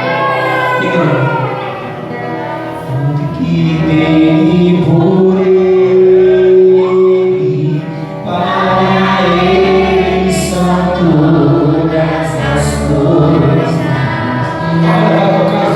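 A group of men's and women's voices singing a Christian hymn together, in phrases with long held notes.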